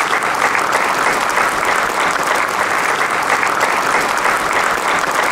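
Audience applauding: a steady, dense clapping of many hands.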